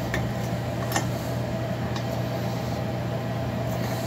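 Steady motor hum with a constant low tone, and a couple of faint clicks about one and two seconds in as a large tap is turned by hand in a cylinder's plug hole.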